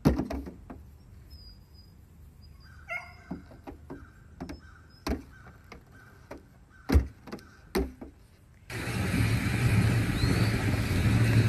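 A goat's hooves knocking and clattering on a car's metal hood: scattered sharp knocks, the loudest about seven seconds in. Near the end the sound switches abruptly to a steady rush of wind noise.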